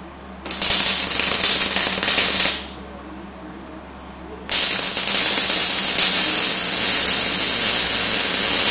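MIG welder arc-welding a heavy steel tube: a loud, dense crackle in two runs, a short one of about two seconds, then a pause, then a longer run from about halfway through.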